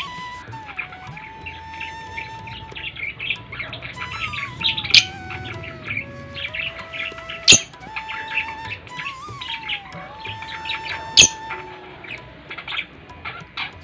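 Small pet parrots, lovebirds and budgerigars, chirping and chattering in a dense, continuous flurry, with three sharp, loud calls standing out. A long held tone glides slowly up and down underneath.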